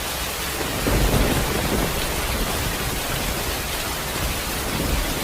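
Steady rain falling, with low rolls of thunder; a rumble swells about a second in and another comes near the end.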